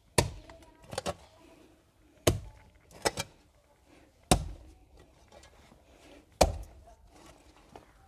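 A fawda (digging hoe) striking hard, stony soil four times about two seconds apart, the first blows followed by a few smaller clinks and scrapes of loosened earth and stones.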